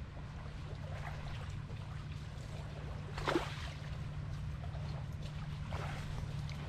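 Shallow lake water splashing and sloshing in irregular little strokes at a pebble shore, one louder splash about halfway through, over a steady low rumble.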